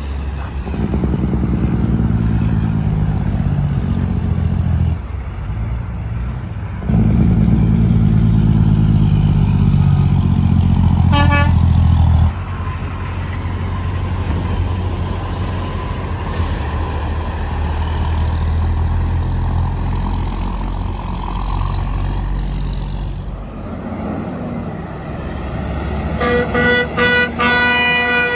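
Heavy trucks passing on an interstate highway, with engine and tyre rumble swelling twice as rigs go by. A very short horn chirp comes about eleven seconds in. Near the end a truck's air horn sounds in a few quick blasts, its pitch dropping as the truck passes.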